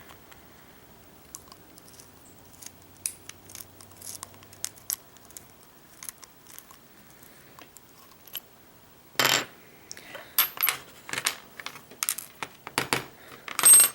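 Small metallic clicks and rattles from handling a pin-tumbler padlock and its key, with one louder clack about nine seconds in and a quick run of sharp clicks near the end.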